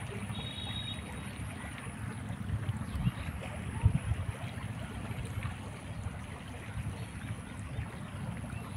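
Wind rumbling on the microphone over the steady wash of a shallow river, with a couple of bumps near the middle.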